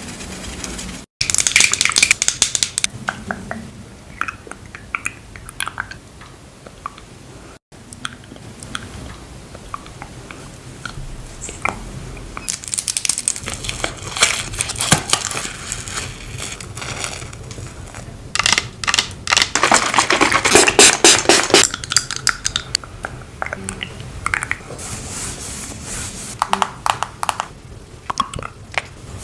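Close-miked cosmetic ASMR sounds in several short clips: dense crackling and tearing as a glitter peel-off face mask is pulled away from the skin, among taps and the handling of cosmetic tubes and applicators. The sound drops out briefly twice, about a second in and again after about seven seconds.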